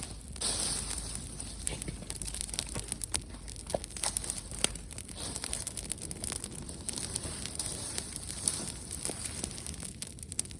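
Wood campfire crackling, with irregular sharp pops and snaps from the burning wood.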